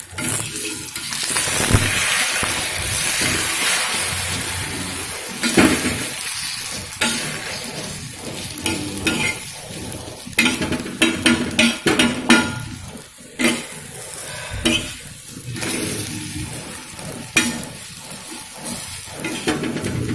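Egg omelette sizzling on a hot flat tawa, loudest in the first few seconds. A steel spoon scrapes and clinks against the pan, with a run of sharp clicks through the middle.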